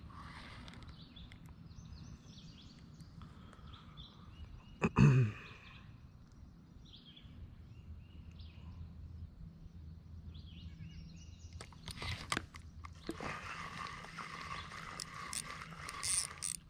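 Fishing reel being cranked to retrieve line, its gears clicking and ratcheting, loudest over the last few seconds. A short voice sound comes about five seconds in.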